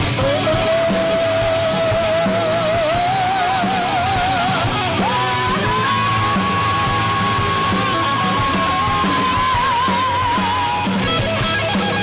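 Rock band playing live, with drums and electric guitar under one long, high lead note. The note wavers, steps up in pitch about five seconds in and holds until near the end.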